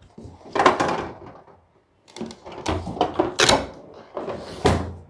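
Packaging and packed parts being handled as items are taken out of an electric breast pump's cardboard box: a series of rustles, scrapes and knocks, the loudest a little over three seconds in and near the end.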